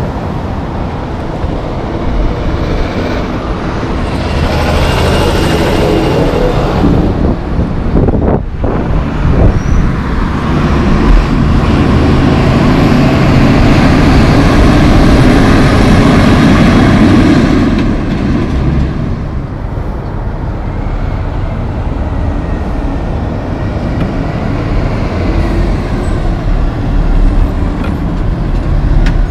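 Heavy diesel trucks passing on a road: engine and tyre noise swelling as a truck approaches, broken off suddenly about eight seconds in. A semi-truck hauling a heavy lowboy load then goes by close, loudest in the middle, and fades to steadier traffic noise after about eighteen seconds.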